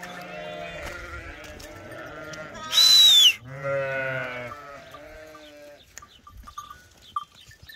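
Sheep bleating: two long, wavering bleats. Between them comes a brief, very loud high-pitched sound that falls in pitch.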